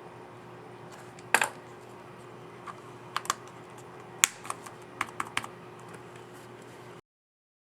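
Keys clicking on a Dell Latitude 3379 laptop's scissor-switch keyboard: one sharp click about a second in, then a scattered run of lighter clicks as the reinstalled key is pressed. The sound cuts off near the end.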